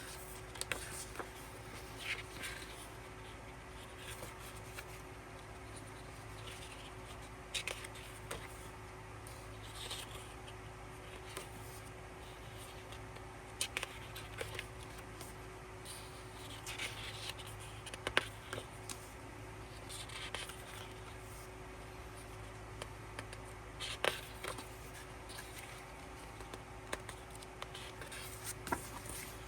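Paper and plastic being handled: scattered light rustles, page sounds and small clicks as a K-pop album's photo book and cards are gone through, over a steady low hum.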